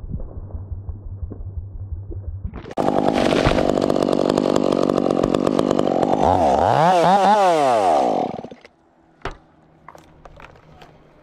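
Top-handle chainsaw idling, then opened to full throttle about three seconds in and held there for roughly five seconds, its pitch dipping and climbing near the end. The engine then cuts off, leaving a few faint clicks of handling.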